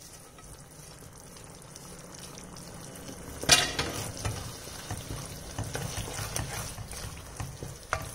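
Thickened sauce sizzling quietly in a non-stick wok as fried cauliflower florets are tipped in. About three and a half seconds in, a wooden spatula starts stirring and scraping the florets through the bubbling sauce, louder and uneven.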